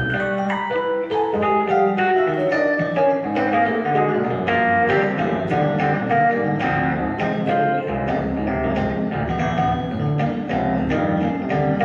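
Rhodes electric piano played solo in a jazz style: a steady stream of chords and runs, with low bass notes filling in about eight seconds in.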